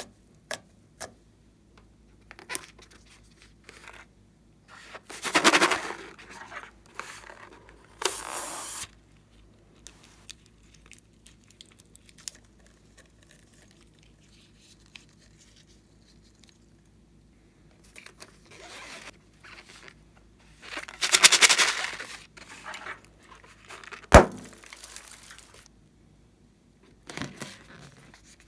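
Close-up handling sounds of slime-making materials: intermittent crinkling, scraping and crackling in a few short bursts, with scattered clicks and one sharp click near the end.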